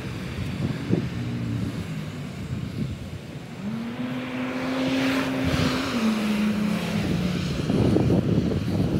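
A car passing on the street: a steady engine hum that drops in pitch as it goes by and fades out. Wind buffets the microphone in gusts near the end.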